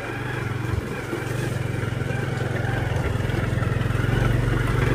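A motor vehicle's engine running steadily, gradually getting louder as it pulls along.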